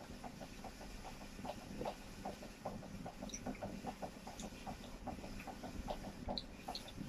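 Close-miked chewing with soft, regular mouth clicks and smacks, about three or four a second, as a man eats.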